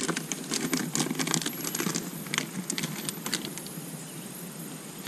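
Soft plastic worms and their plastic packaging being handled: a flurry of small irregular clicks and crinkles that thins out after about three seconds.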